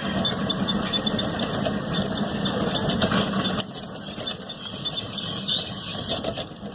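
Road traffic noise with a vehicle engine running. From about halfway through, a high, wavering squeal sounds for a couple of seconds, dipping in pitch before it stops.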